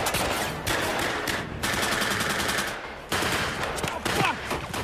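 Film firefight: rapid, overlapping gunfire from automatic weapons and rifles, several shots a second with short breaks, and a man shouting an insult about four seconds in.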